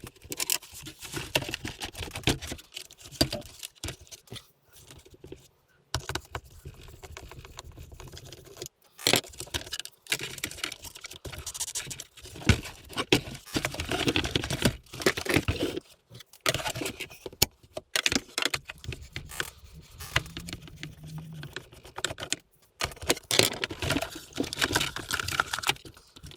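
Irregular clicking, rattling and light scraping of plastic and metal parts being handled during the teardown of a vacuum cleaner, with a few short pauses.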